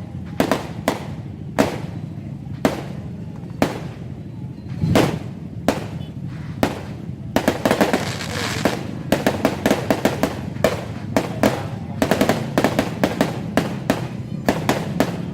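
Fireworks going off: sharp bangs every half-second to second at first, then from about seven seconds in a dense barrage of rapid cracks and crackling.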